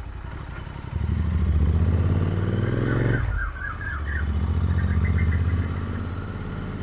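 Royal Enfield Continental GT650's 648 cc parallel-twin engine running through an AEW aftermarket exhaust with its dB killer fitted, heard from the rider's seat while accelerating. The revs climb for about two seconds and drop sharply at a gear change about three seconds in. They climb again in the next gear, then ease off near the end.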